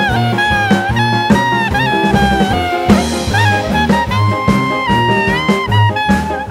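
Upbeat swing-jazz background music: a bending horn melody over a bass line and drums.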